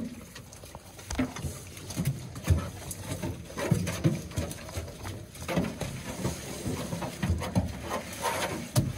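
Pigs moving about, with irregular knocks and shuffling of hooves and occasional low grunts.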